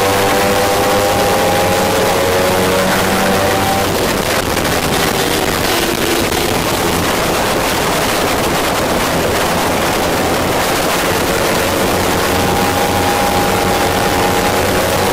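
Kawasaki Ninja 300's parallel-twin engine running hard under a rush of wind noise at racing speed, heard from on the bike. The engine note sinks into the wind in the middle and comes back, rising slightly, near the end as the bike pulls out of the turn.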